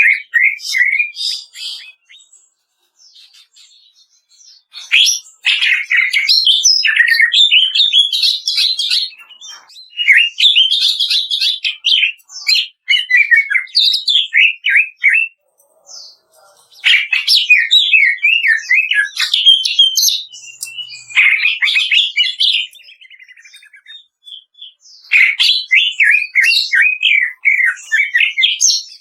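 Green leafbird (cucak ijo) singing loud phrases of fast, varied chirps and whistles, each a few seconds long with short pauses between. One passage near the middle of the third phrase is a rapid rattle.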